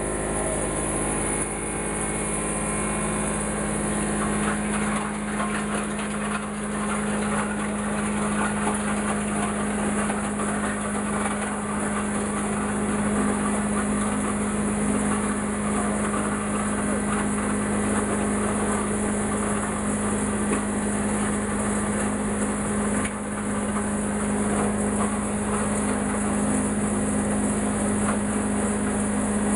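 Industrial wood shredder running, its electric drive giving a steady hum under continuous rough, crackling noise.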